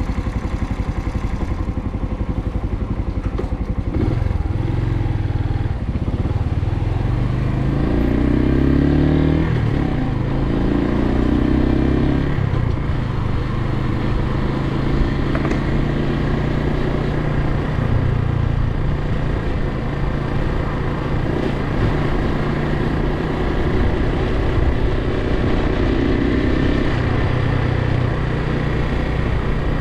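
Suzuki TU250X's single-cylinder engine running while riding, its pitch rising and falling a few times in the first half, then holding fairly steady.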